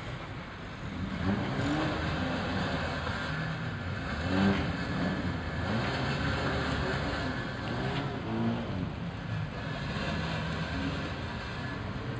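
Car engine being revved repeatedly over a running idle, each blip of the throttle rising and falling in pitch.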